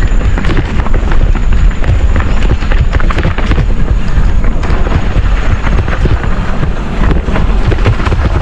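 Wind rushing over the microphone while a mountain bike descends fast over rough trail, its frame and parts rattling with many small knocks and clatters.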